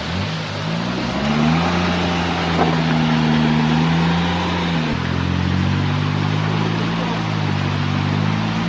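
Suzuki Jimny's engine revving under load as it crawls over streambed boulders. The revs climb in the first second and hold for several seconds, dip briefly about five seconds in and climb again, then sag and rise once more near the end.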